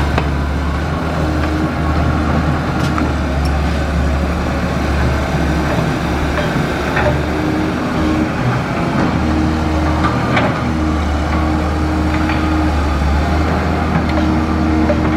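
Cat 320C excavator's diesel engine running steadily, with a brief dip in its sound about eight seconds in and a few sharp knocks scattered through.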